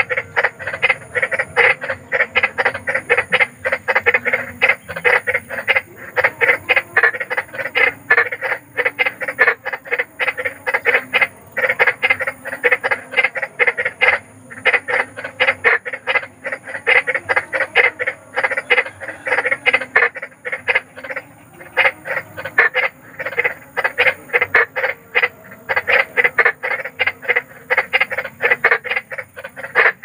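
Frog croaking, a fast run of short pulses repeating without a break.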